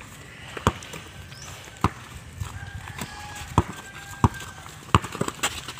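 A basketball being dribbled on hard-packed dirt: about five sharp thuds at uneven intervals, roughly a second apart.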